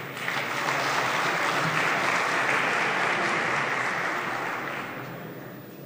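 Applause from the members seated in a large parliament chamber, starting right away, holding steady, then dying away about five seconds in.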